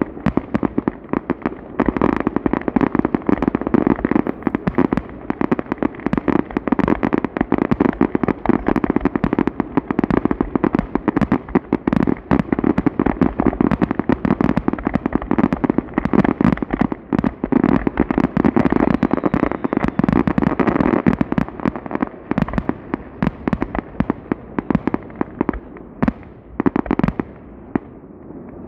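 Fireworks going off in a dense, rapid barrage of bangs and crackles, thinning out after about twenty seconds, with one more brief cluster of reports near the end.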